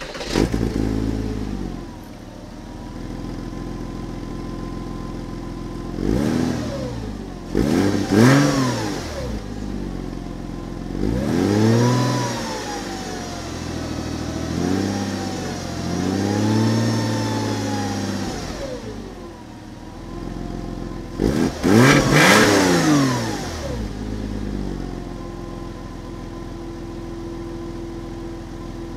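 Porsche Boxster 986 flat-six heard at the exhaust tip through a muffler punctured for the Crios mod (about 15.5 mm holes letting the gas skip a chamber): it starts and settles to idle, is revved several times in short blips and longer held revs, then returns to a steady idle.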